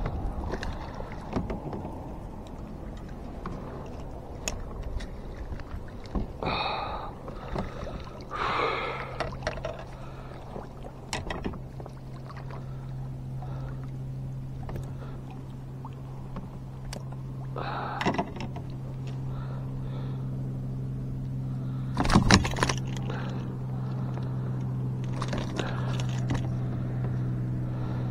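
A boat motor hums steadily at one pitch, coming in about six seconds in and growing louder through the second half. Several short splashing, knocking noises break in over it, the loudest a little after halfway.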